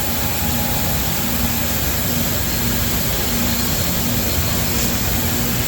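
Crest ultrasonic cleaning console running, with its ultrasonic tanks, wash pump and heated dryer all on: a steady machinery noise, with a faint low hum that breaks in and out.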